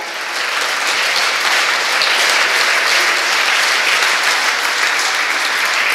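An audience applauding: steady clapping from many hands, with no break.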